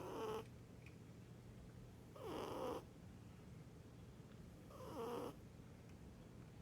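Scottish Fold cat snoring in its sleep: three soft, rasping breaths, each about half a second long, about two and a half seconds apart.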